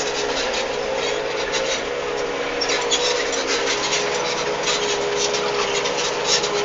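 Case IH CVX 160 tractor running steadily under load while ploughing: a constant engine hum with many quick clicks and rattles over it.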